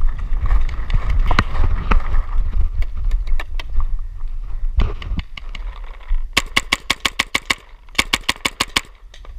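Running footsteps through grass with wind buffeting the microphone, then two rapid strings of paintball marker shots, each about a second long, starting around six seconds in.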